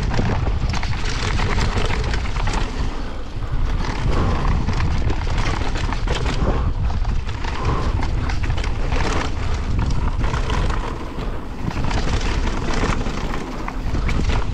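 Mountain bike riding fast down a dirt and stone trail: tyres rumbling over the ground and the bike clattering with many short knocks and rattles, under heavy wind noise on the bike-mounted microphone.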